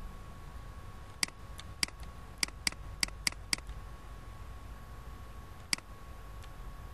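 Computer mouse clicks: seven quick clicks in about two and a half seconds, then one more a couple of seconds later, over a faint steady hum.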